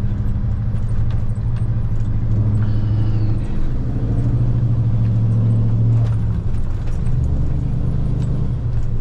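Scania logging truck's diesel engine running steadily while driving, its engine note shifting a couple of times.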